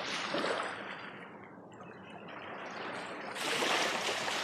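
Water trickling and lapping, a steady noisy wash that swells at the start and again about three and a half seconds in.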